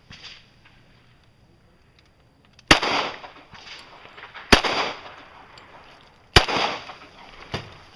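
Three loud gunshots about two seconds apart, each followed by a short echo, then a fainter shot near the end.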